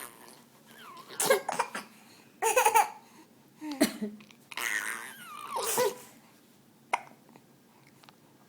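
A young child laughing in hiccuping bursts: several separate bursts of laughter over about five seconds, then one short, sharp catch of breath.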